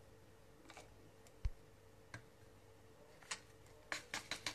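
Faint crinkling and tapping of a paper sachet of powder being emptied: a few scattered ticks, a soft thump about one and a half seconds in, and a quick run of crinkly clicks near the end.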